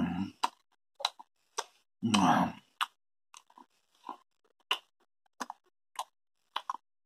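A person chewing a mouthful of grill sausage, with wet smacking clicks about every half second. There are two short low grunts, one at the start and one about two seconds in.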